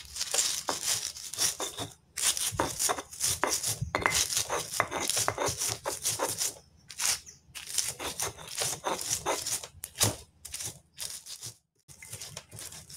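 Stone pestle (ulekan) grinding and crushing chillies, garlic and salt on a stone cobek mortar, a rapid run of gritty scraping strokes with short pauses about two seconds in, around seven seconds and near the end.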